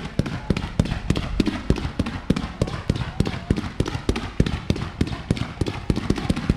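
Fireworks display: a fast, irregular barrage of bangs, about four or five a second, with crackle between them.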